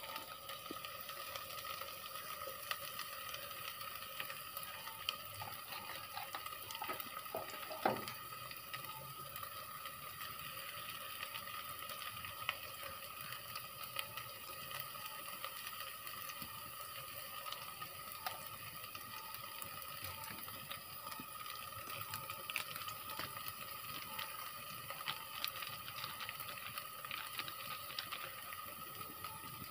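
Sliced onions frying in oil in an aluminium pot: a low, steady sizzle with many small crackles, and a brief knock about eight seconds in.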